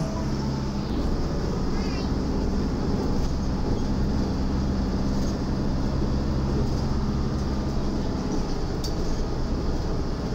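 Steady engine hum and road noise heard from inside a city minibus as it drives.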